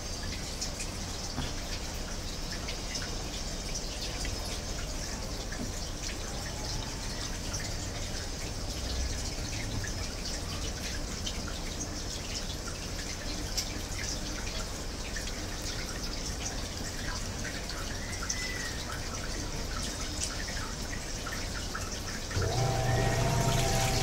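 Water dripping and trickling inside the tub of an Electrolux EWT705WN top-loading washing machine: a steady wash of sound sprinkled with many small drips. About 22 seconds in, the machine's motor starts with a low hum, everything gets louder, and the water begins to swirl in the tub.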